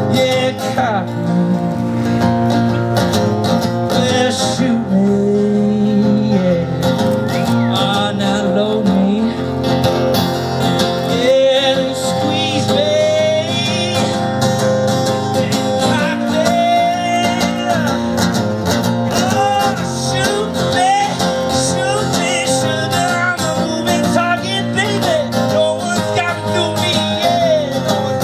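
Guitar-led country-rock song playing, with sliding, wavering lead lines over a steady beat.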